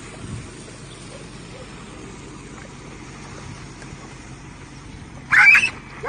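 A dog gives one short, high yelp near the end, over a steady low background rumble.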